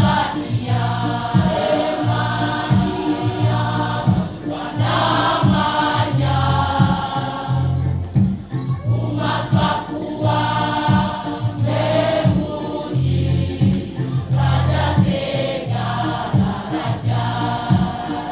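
Youth choir singing in parts over instrumental accompaniment with sustained low bass notes and a regular beat.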